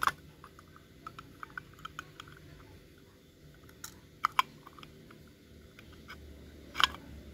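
Light clicks and taps of a carburetor and small metal parts being handled and worked on by hand, with sharper knocks at the start, twice about four seconds in and once near the end.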